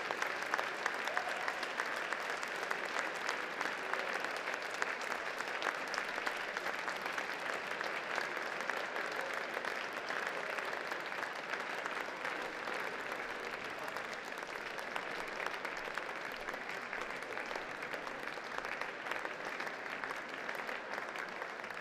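Audience applauding: dense, steady clapping from many hands that eases slightly toward the end.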